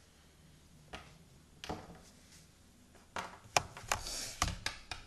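Small plastic toy figures knocking and tapping against a wooden surface: a couple of single taps, then a quick run of knocks with some rustling about three seconds in.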